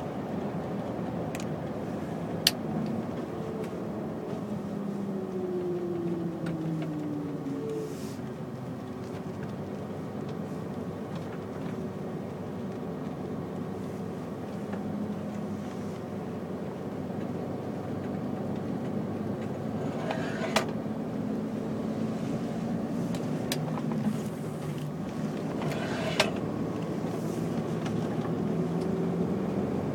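MAN TGA XXL 480 lorry's straight-six diesel heard from inside the cab while driving. The engine note drops as the truck slows, runs low and steady, then climbs near the end as it accelerates. A few sharp clicks sound through it.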